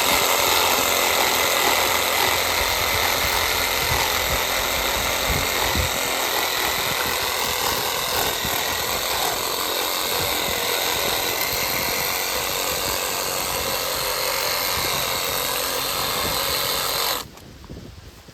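Cheap cordless reciprocating saw running steadily as it cuts through a branch, then stopping abruptly near the end.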